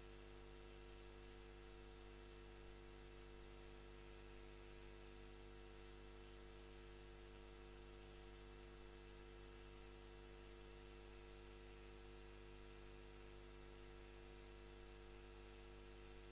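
Steady hiss and electrical hum of an open live-broadcast audio line, a few constant tones sitting under the noise and unchanged throughout.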